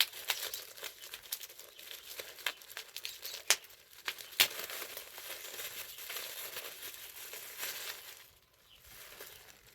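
Protective packaging around a small glass tincture bottle crinkling and crackling as it is unwrapped by hand, with a few sharper snaps a few seconds in, then going quieter near the end.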